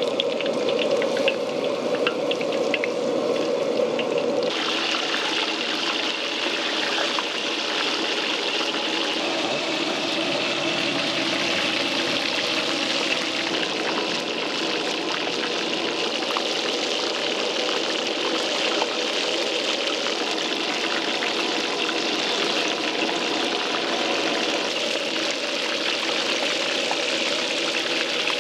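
Flying fish deep-frying in a wok of hot oil: a steady sizzle and crackle of bubbling oil. It turns higher and fuller about four seconds in, then holds even.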